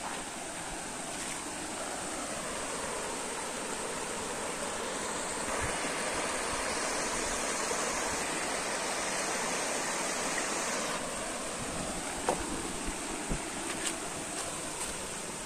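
Steady rush of water from a mountain stream and waterfall tumbling over rocks. It swells louder in the middle for several seconds, and a few light knocks come near the end.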